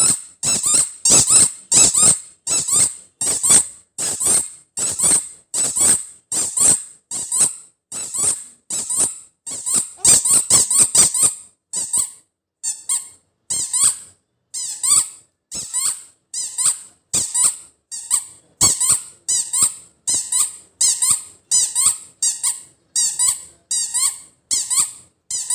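Squeaky 'chuu chuu' toy ball squeezed over and over, making short high squeaks about one and a half times a second, with a brief pause about halfway through.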